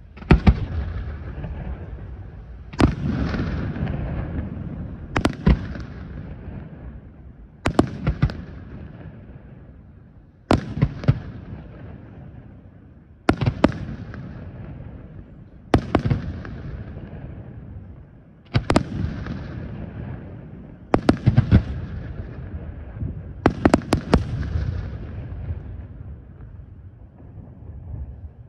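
Aerial firework shells bursting one after another, about every two and a half seconds. Each burst is a sharp bang followed by a rumbling tail that fades, and a few come as quick double or triple bangs.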